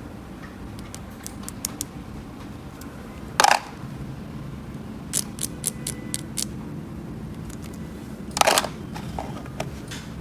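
Small plastic toy pieces being handled: scattered light clicks and taps, with two louder brief clatters about three and a half and eight and a half seconds in.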